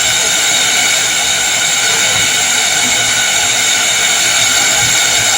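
Heavy rain with wind, a steady loud hiss with no breaks.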